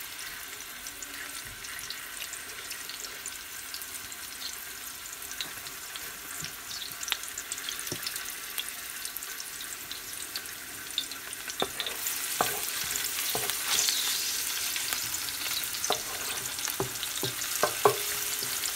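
Sliced onions and cumin seeds sizzling in hot oil in a large metal pot. The hiss grows louder about twelve seconds in. In the second half a wooden spatula stirs them, with scattered knocks and scrapes against the pot, several close together near the end.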